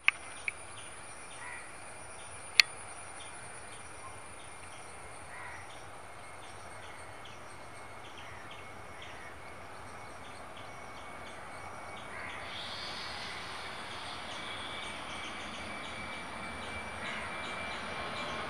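Distant Boeing 737 jet engines spooling up for take-off: a thin whine comes in about twelve seconds in and slowly grows louder. Before that, outdoor ambience with a few bird calls and sharp clicks near the start.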